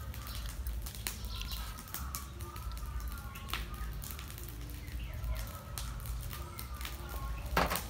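Faint bird calls in outdoor ambience over a low rumble, with small clicks from eating and handling a steel cup. About seven and a half seconds in there is one loud sharp knock, the stainless steel cup being set down on the metal table.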